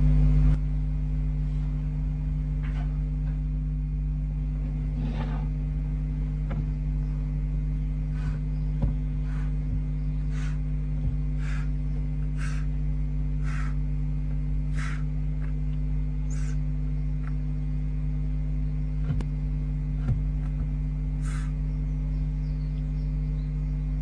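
Barn owlets giving short hissing snore calls, about one a second for ten seconds or so in the middle, with a few scattered ones before and after, over a steady electrical mains hum.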